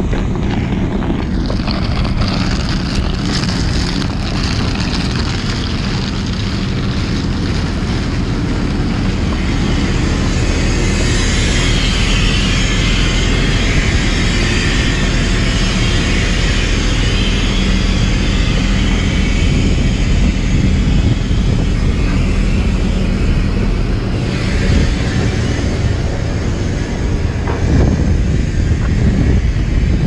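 Junttan PM23 crawler pile driver's diesel engine running steadily, with a hiss that is strongest in the middle.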